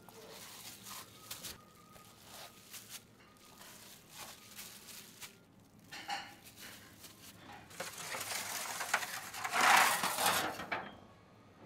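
Marinated trout pieces laid into dishes on a metal oven peel, with small clinks and handling knocks, then a longer grating scrape, the loudest sound, as the loaded peel slides across the floor of a wood-fired oven about eight seconds in.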